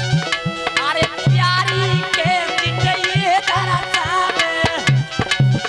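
Devotional folk music: a dholak beats a steady rhythm with pitch-bending bass strokes, under quick metallic chimta clicks. From about a second in until near the end, a sung melodic line with wavering ornaments rides over it.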